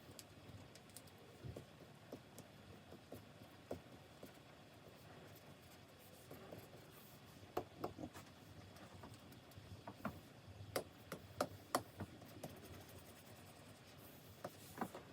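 Faint stylus-on-screen drawing sounds from a Wacom Cintiq 24 Pro pen display: soft strokes over a low hiss, with sharp taps of the pen that come in clusters about halfway through and again near the end.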